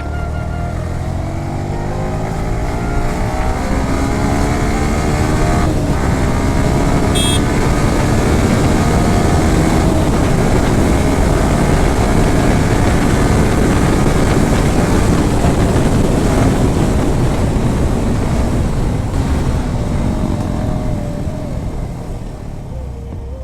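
Motorcycle engine running under acceleration, its pitch climbing over the first few seconds, with heavy wind rush on the microphone while riding.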